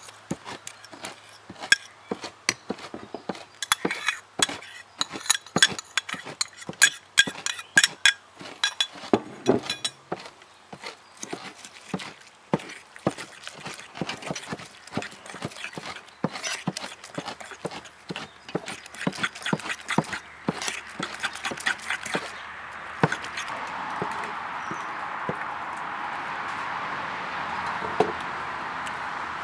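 A metal fork clinking and scraping against a ceramic bowl as rice is stirred into beaten eggs: many quick, uneven taps. About two-thirds through the taps thin out, and a steady hiss takes over.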